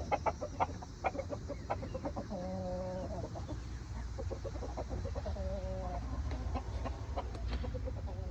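Hens clucking: a quick run of short clucks at the start, then a couple of longer drawn-out calls and scattered single clucks.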